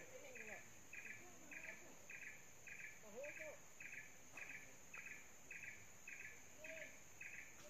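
Faint insect chorus in swamp forest: a steady high-pitched drone under a chirp that repeats evenly, just under twice a second. A few faint, short, lower calls come and go.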